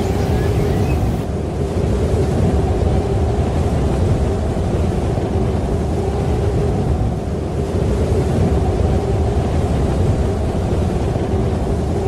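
Snowstorm wind buffeting the microphone: a loud, steady low rumble.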